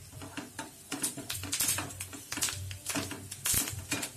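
Wooden spatula stirring a thick masala sauce in a ceramic-coated frying pan, knocking and scraping against the pan in quick, irregular clicks.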